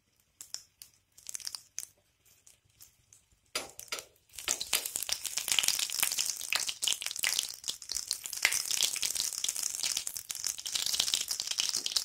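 Hot coconut oil with crushed shallot sizzling and crackling in a steel ladle over a gas flame, starting about four seconds in and then running on steadily. Before that come a few faint crunching clicks as camphor is crumbled into the oil.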